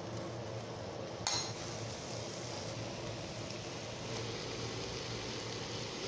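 Steady sizzling of food frying in a pan, with one sharp clink of a metal spoon against the pan about a second in.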